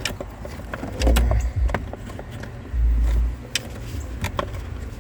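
Clicks, knocks and rustles of a plastic-framed cabin air filter being pushed into its housing in a Jeep Wrangler JK, with two dull low thumps, about a second in and about three seconds in.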